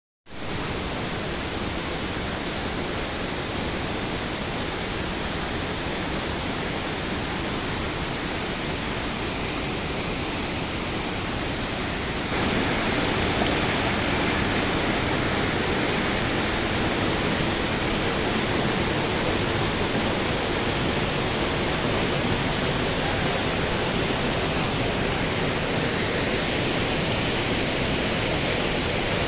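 River water rushing over rocks and rapids: a steady, full rush of water noise that steps up louder about twelve seconds in.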